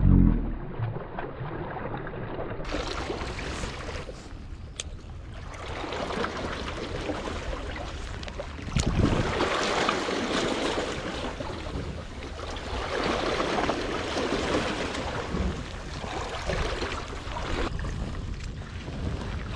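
Sea waves washing against the rocks of a boulder breakwater, with wind, the rushing noise swelling and fading every few seconds. A low thump comes right at the start.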